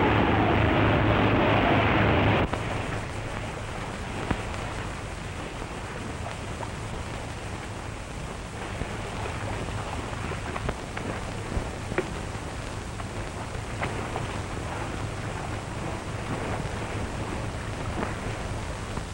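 A louder sound with a wavering gliding tone cuts off suddenly about two and a half seconds in. It gives way to a steady hiss with scattered crackles and clicks, the surface noise of an old optical film soundtrack.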